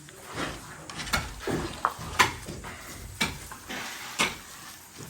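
Construction work sounds: sharp scraping knocks, roughly one a second, over a faint rasping noise.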